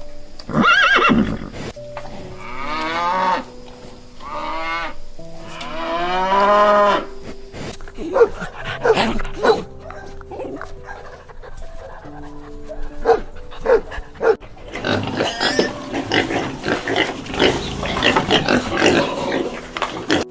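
Farm animals calling over background music. Three drawn-out calls come first, then scattered short calls, and near the end a dense chorus of many overlapping calls.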